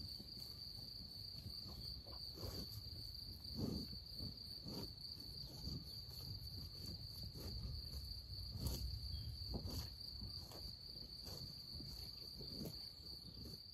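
Crickets trilling in one steady, unbroken high note, over a low, uneven rumble with a few soft knocks.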